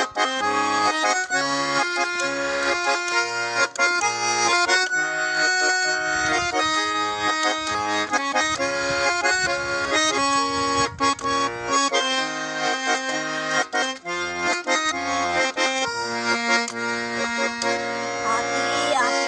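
Garmon (Russian button accordion) playing the instrumental introduction of a folk-style song: a melody with chords, over bass notes that come in a regular rhythm.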